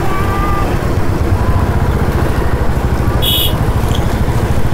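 Motor scooter engine running at riding speed, heard from on board with a steady low rumble, with other motorcycles around. A brief high-pitched sound about three seconds in.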